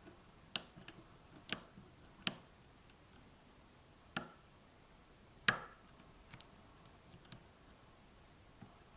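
Lock pick and tension wrench working the pin stack of an Abus 83/45 padlock cylinder: irregular sharp metallic clicks as pins are lifted and snap back or set. Five louder clicks in the first six seconds, the loudest about five and a half seconds in, with fainter ticks between.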